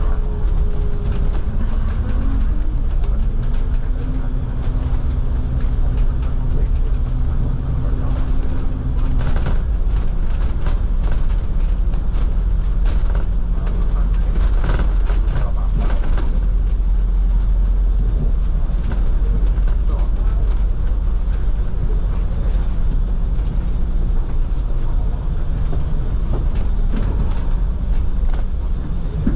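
Bus in motion heard from inside: a steady engine and road rumble, with a whine that rises about two seconds in and holds until about nine seconds, and scattered cabin rattles after it.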